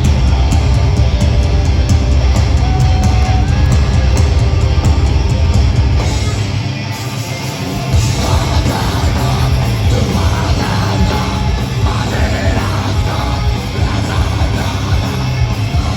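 Metalcore band playing live and loud, with heavy distorted guitars and drums. The low end drops out briefly about six seconds in, then yelled vocals come in over the band.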